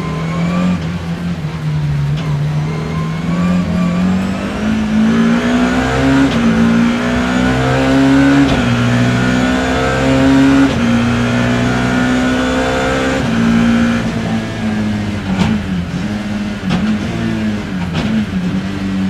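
BMW E30 M3's four-cylinder race engine heard from inside the car, pulling hard with the revs climbing, then stepping down at a few upshifts about eight, ten and thirteen seconds in. Near the end the revs rise and fall unevenly several times.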